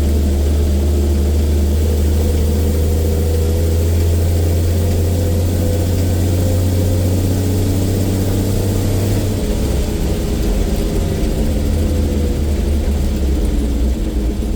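Bedford RL truck's petrol straight-six engine running steadily, its note dropping slightly about nine seconds in as the revs ease.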